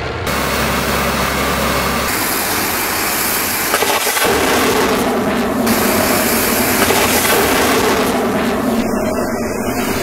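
Heavy military vehicle engines running, then a loud, steady rushing noise of a surface-to-air missile launch and its flight.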